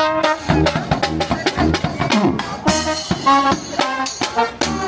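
Upbeat music with brass instruments and a steady beat.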